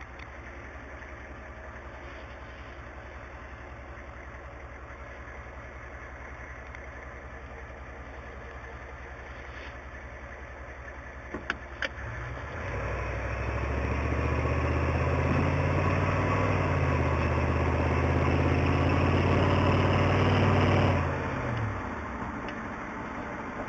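1993 Ford F-250's 7.3-litre IDI diesel V8 through a Flowmaster exhaust, heard from inside the cab: idling steadily for about twelve seconds, then pulling away under throttle. The engine note rises, drops once at a gear change and climbs again, then falls away as the throttle is eased off near the end; a couple of sharp clicks come just before it pulls away.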